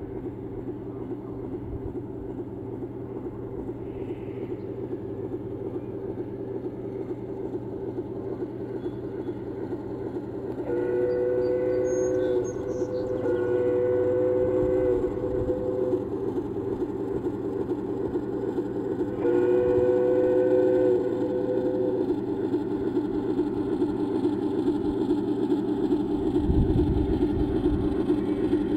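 Large-scale garden model train running along its track, the running noise growing louder as it approaches. Its sound unit gives three blasts of a two-note horn, the last a few seconds after the first two.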